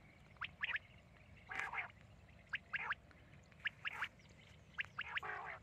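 Common quail calling: short clusters of two or three sharp, quick notes repeated about once a second, with a few rougher, raspier calls among them.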